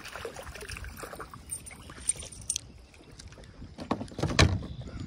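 Water splashing and sloshing around a kayak, with a few sharp clicks in the first couple of seconds and a louder, deeper thump about four seconds in.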